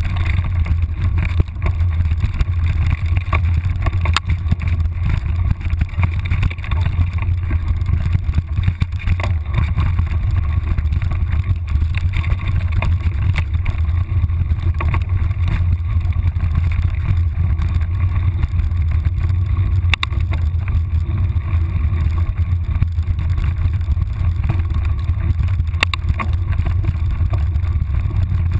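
Steady low rumble of wind and vibration noise on a moving action camera, with a few scattered light clicks.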